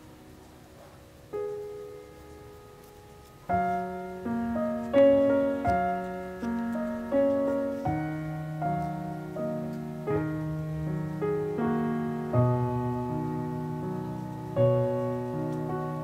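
Soft solo piano background music. A single quiet chord sounds about a second in, then a flowing melody over low bass notes starts at about three and a half seconds.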